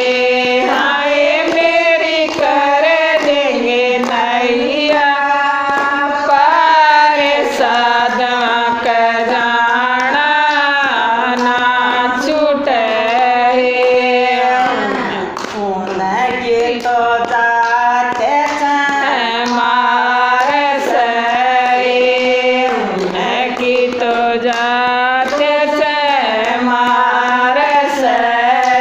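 Women's voices singing a Haryanvi devotional bhajan in long held, gliding lines, with hand claps keeping time.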